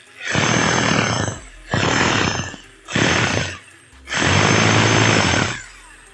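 20 mm hammer drill run in four short bursts with brief pauses between, as a test of a drill whose bit does not rotate properly.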